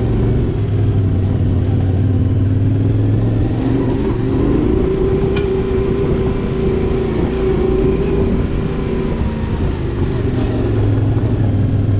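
Yamaha Ténéré 700's 689 cc parallel-twin engine running steadily at low speed on a dirt track, with tyre and gravel noise and a few light clicks.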